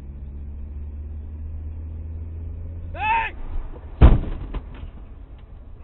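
Steady low engine and road rumble heard from inside a car, a short shout about three seconds in, then a loud bang of a car collision about a second later, followed by a few rattling knocks.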